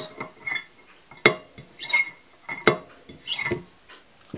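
A 6805 cartridge bearing in a plastic adapter cover clinks against the hollow crank spindle as it is slipped onto and off it. There are several sharp clinks with a short ring, a little under a second apart, and the cover has a little slack on the spindle.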